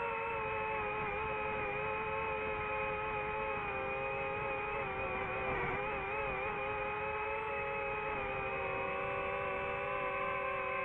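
DJI FPV drone's motors and propellers whining steadily in flight, several close pitches at once. The pitches wobble about halfway through as the drone manoeuvres and drift apart near the end.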